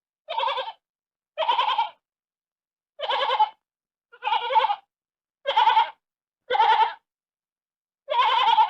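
Sheep bleating: seven short, wavering bleats, roughly a second apart, with dead silence between them.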